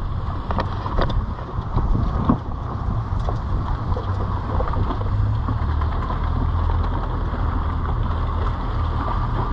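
A small boat's engine running steadily at low speed, with wind on the microphone and water rushing along the hull; a few light knocks in the first couple of seconds.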